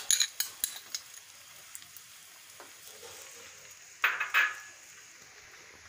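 Pan of vegetable broth heating on the stove with a steady faint sizzling hiss. A few sharp clicks and knocks come in the first second, and a louder short clatter about four seconds in, from utensils and sauce bottles at the pan.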